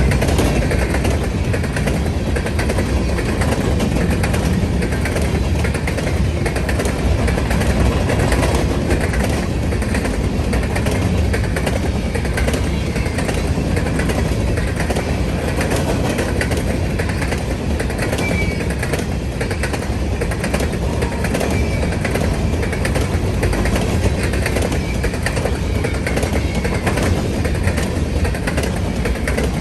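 A train rolling past, a steady loud rumble with a regular clicking of wheels over rail joints.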